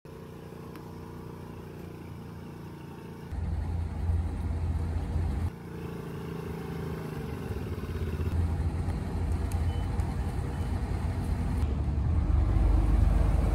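Amphibious boat's engine running: a steady hum that jumps to a louder low rumble about three seconds in, then grows gradually louder.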